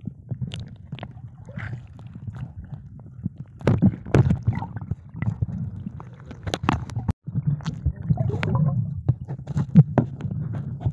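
Underwater sound picked up through a camera housing: a low rumble of moving water with gurgling and many scattered clicks and crackles. There is a brief dropout about seven seconds in.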